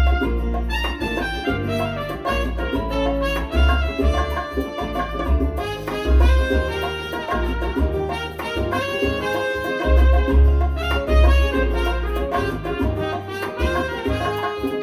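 Recorded music played back through KEF LSX wireless speakers: held horn and saxophone lines over a deep, pulsing bass line and percussion.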